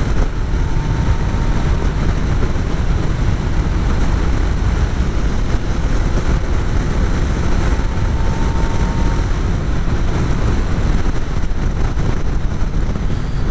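Motorcycle riding at a steady speed: engine running under heavy wind rush on a helmet-mounted microphone, with a low rumble that stays even throughout.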